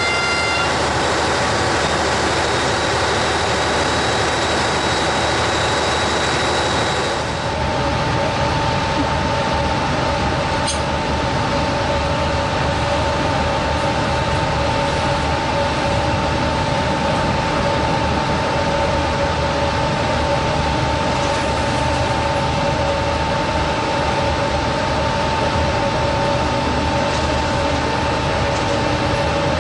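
Loud, steady machinery noise in a ship's engine room for the first seven seconds or so. Then comes different steady deck machinery noise with a constant two-note whine, from the hoist lifting fish tubs out of the hold.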